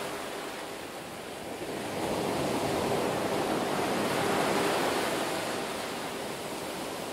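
Sea surf washing on a sandy beach, a steady hiss of breaking waves that swells about two seconds in and eases off near the end.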